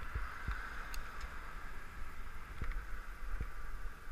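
A cargo bicycle rolling along a road, heard as steady low wind rumble on the microphone and road noise, with a few short knocks scattered through.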